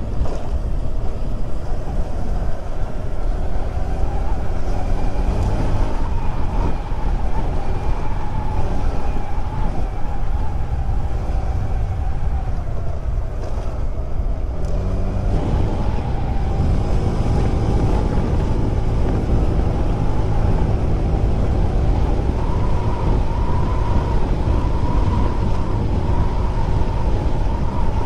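Honda Click 125 scooter's single-cylinder engine running under way, with a dense low rumble of wind and road on the microphone. The engine note sags and eases off about halfway through, then climbs again and holds steady.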